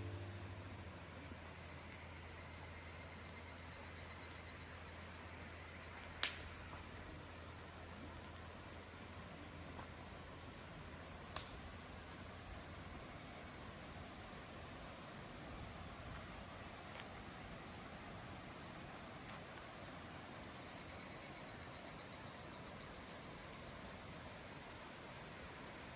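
Steady, high-pitched chirring of insects, with two short sharp clicks about six and eleven seconds in.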